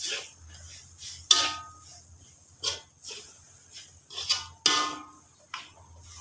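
Metal spatula scraping and knocking against a steel wok while stirring dry toasted grated coconut (serunding), with several sharp clangs that ring briefly; the loudest come about a second in and near five seconds in.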